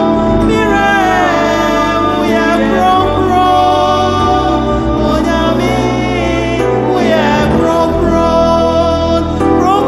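Gospel worship song: a woman singing a melody with held and gliding notes over a steady instrumental backing with a deep bass.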